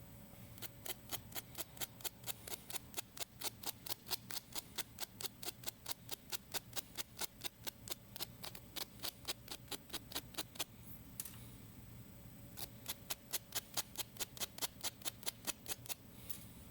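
Fine sandpaper, about 320 grit, rubbed rapidly back and forth over the electrical contacts of a welder's power switch to clean contacts suspected of being dirty. The strokes run about four to five a second, stop for a couple of seconds about two-thirds of the way through, then start again.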